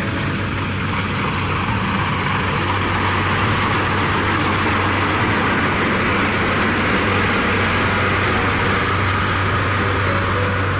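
Kubota DC70 combine harvester running steadily while harvesting rice: a constant low engine hum under a broad, even mechanical rush.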